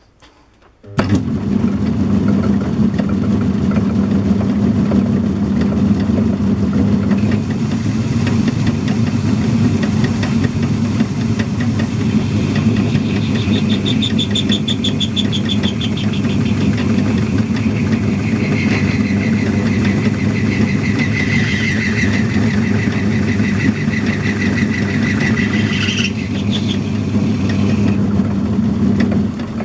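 A metal lathe starts up about a second in and runs steadily with a low hum. From about seven seconds in, the tool takes a light turning cut on a steel plate, adding a higher hiss and whine, which stops near the end before the lathe's sound drops away.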